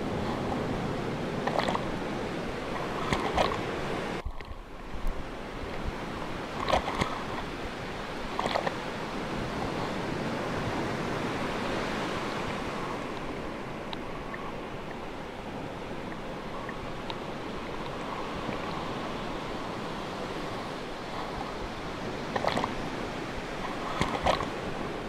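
Sea waves washing steadily, broken three times by a pair of short sharp clicks about two seconds apart.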